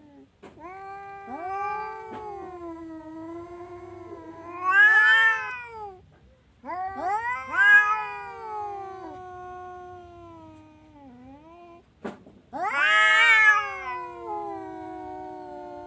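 Orange domestic cat yowling in three long, drawn-out calls, one after another. Each call swells to a loud, higher peak and then sinks in pitch as it fades out.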